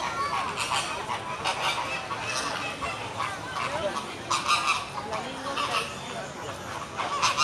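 A flock of large birds calling, with short loud calls repeating about once a second over a busy background of other bird calls.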